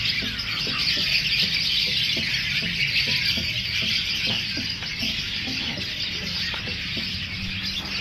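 Dense, continuous chorus of many caged birds chirping and calling at once, with music playing underneath.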